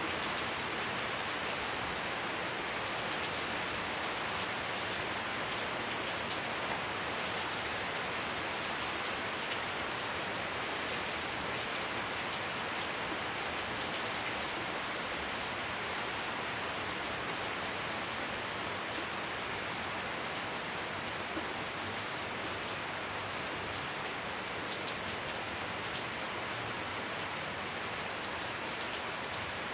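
Heavy rain falling steadily on a wet concrete yard and the plants around it, an even hiss that does not let up.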